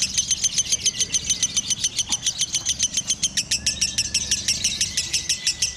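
Lovebird singing a long unbroken chatter of rapid, high chirps, about eight or nine a second, at a steady pace.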